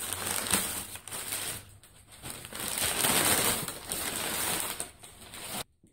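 Cardboard shipping box and its packing material being handled and pulled open, a loud crinkling and crushing rustle in two stretches with a short lull about two seconds in, stopping abruptly near the end.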